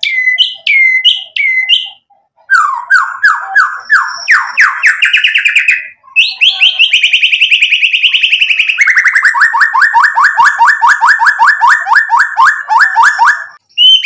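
White-rumped shama singing loudly and energetically. It gives a few falling whistles, then a run of notes that climb in pitch, then a fast trill, and ends with a long rapid-fire run of repeated notes, about five or six a second.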